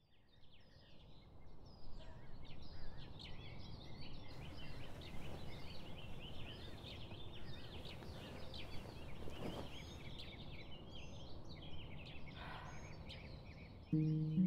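Many small birds chirping and singing, fading in from silence over a low steady background hum, like morning birdsong heard from a room. Music with sustained low notes comes in near the end.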